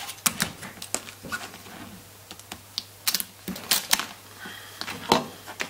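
Sharp kitchen knife cutting through a king crab leg's shell on a cutting board: irregular crisp clicks and cracks of blade on shell and board, a quick cluster about three to four seconds in and a loud crack about five seconds in.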